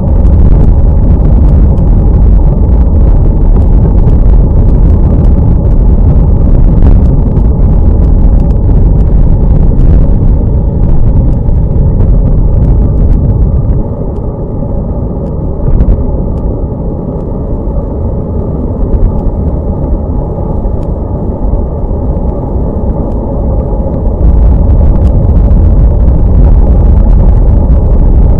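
Wind rumbling on a bike-mounted camera's microphone at riding speed, with many small crackles. It eases for about ten seconds midway, then comes back as loud.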